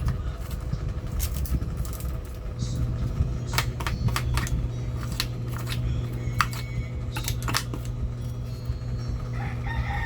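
Scattered sharp clicks and crinkles of candy-wrapper debris being picked and cleared out of a treadmill's motor controller, over a steady low hum.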